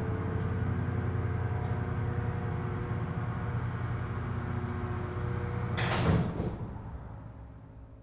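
A low steady drone, then about six seconds in a heavy sliding door slides and slams shut, and the sound fades away after it.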